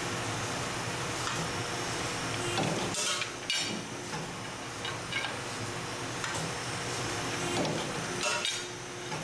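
Namsung NSB-607 busbar machine running with a steady hum while its punch strikes through a copper busbar twice, about five seconds apart, each stroke a sharp metallic clack.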